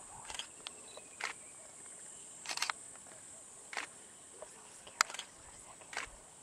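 Camera shutters clicking, one or a few at a time about every second, the loudest about five seconds in. A steady high insect buzz runs underneath.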